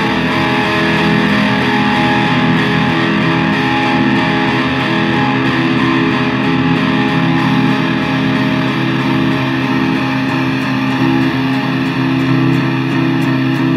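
Rock music led by distorted electric guitar, playing steady, sustained chords.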